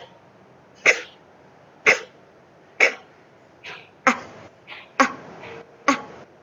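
A woman's voice sounding the phonics 'b' sound, a short clipped 'buh', over and over at about one a second, with a few softer letter sounds in between.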